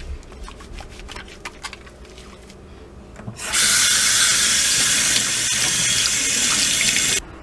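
Faint wet clicks of soapy hands rubbing together, then a kitchen tap running into a stainless-steel sink as the lather is rinsed off. The water starts about halfway through and shuts off suddenly near the end.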